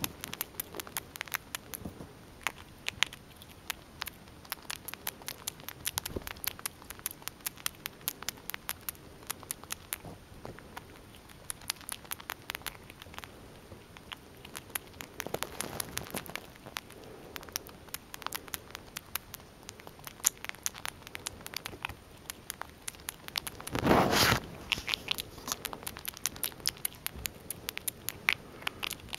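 Eastern gray squirrel nibbling a hard biscuit treat held in its paws close to the microphone: a fast, irregular run of small crunching clicks from its teeth. About 24 seconds in there is one brief, louder burst of noise.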